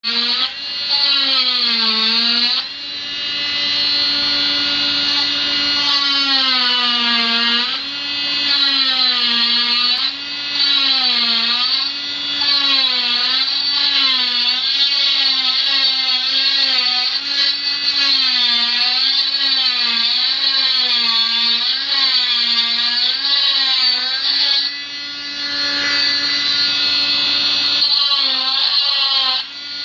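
Oscillating cast saw whining as it cuts through a plaster arm cast, its pitch sagging and rising again over and over as it is worked along the cast, with a few brief breaks where the blade comes off.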